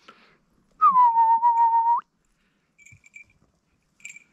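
One loud whistle lasting a little over a second, starting slightly higher and sliding down to a steady held note. Faint short high chirps follow about a second later and again near the end.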